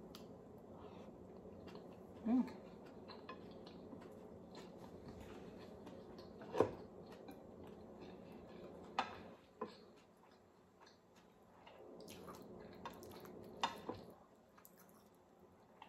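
Close-miked eating sounds: quiet chewing and a handful of sharp clicks and taps of fingers and food against a ceramic plate, the sharpest about halfway through.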